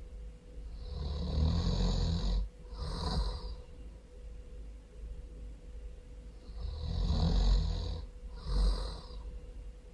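A person snoring loudly in two cycles. Each cycle is a long rattling breath followed by a shorter one about a second later.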